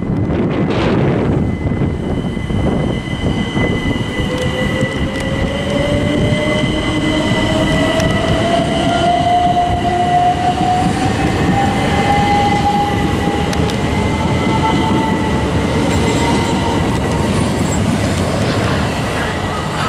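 Class 375 Electrostar electric multiple unit moving past on the platform road: its traction motors give a whine that rises steadily in pitch as it gathers speed, over a continuous rumble of wheels on rail, with a steady high hum above.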